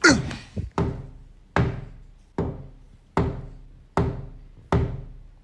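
A steady run of knocks, about one every 0.8 seconds, each with a short ringing decay. The first knock comes with a brief falling tone.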